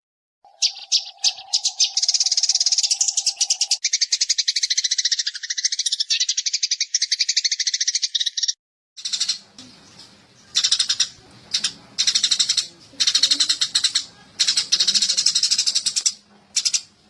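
Eurasian tree sparrows chattering: rapid, dense runs of high chirps. They run almost unbroken for about eight seconds, with a steady low tone under the first few seconds. After a brief break they come back in short bursts about a second apart over a faint hum.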